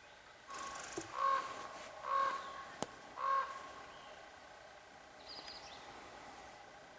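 A bird calls three times, about a second apart. Each call is short, loud and steady in pitch. A sharp click comes between the second and third call.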